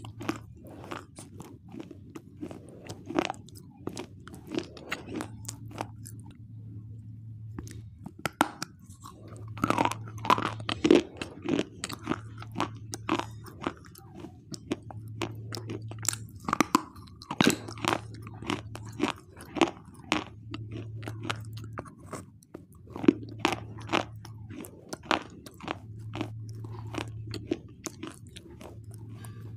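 Close-up crunchy biting and chewing of a hard, chalky white mineral bar: dense, irregular crisp cracks and grinding crunches as pieces break off between the teeth, with a few louder snaps.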